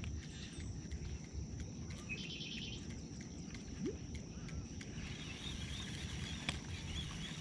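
Quiet lakeside ambience: a steady high-pitched insect drone, with a brief rapid chirping trill about two seconds in.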